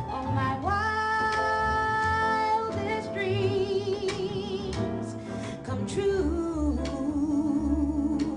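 A woman singing live with piano and double bass accompaniment, holding long notes, one with a wide vibrato, then sliding down in pitch about two-thirds of the way through.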